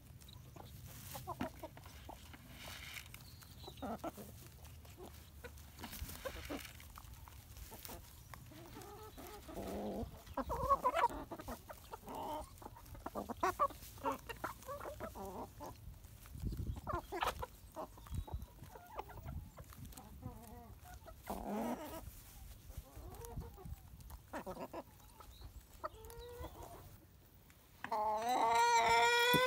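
Chickens clucking on and off, short calls scattered throughout. Near the end one bird gives a much louder, longer call that rises in pitch.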